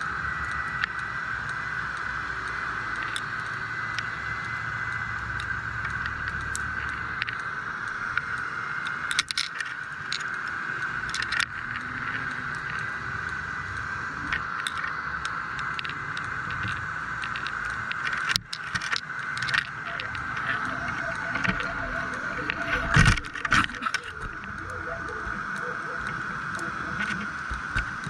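Steady hiss with scattered sharp knocks and clicks, the loudest cluster about two-thirds of the way through, typical of the audio from a camera in an underwater housing lowered into the sea.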